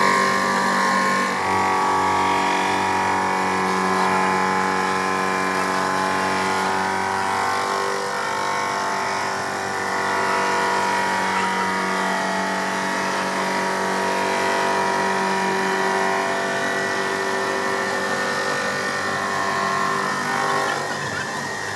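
A motor-driven machine running steadily, a constant hum made of several steady tones.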